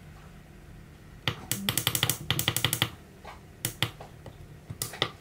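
Buttons on a Launch BST-460 handheld battery tester being pressed, stepping its rated-amps setting down. A quick run of about a dozen clicks comes a second in, then a few single clicks.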